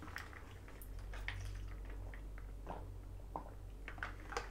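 Faint mouth sounds of eating and drinking: a few small scattered clicks and sips as a cold drink is drunk through a straw from a plastic tumbler, over a low steady room hum.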